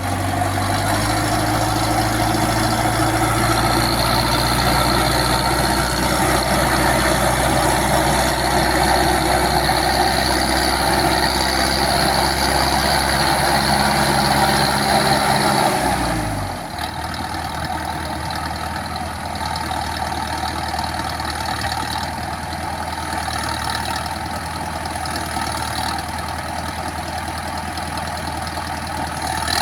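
A 50 hp farm tractor's engine running steadily. About sixteen seconds in its pitch falls and it settles into a lower, slightly quieter run.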